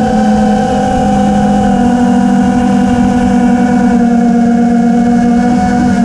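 FPV quadcopter's electric motors and propellers whining steadily at a near-constant throttle, with two close pitches from the motors running at slightly different speeds.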